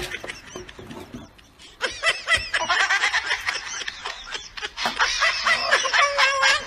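Laughter, quieter at first and then loud, rapid and continuous from about two seconds in.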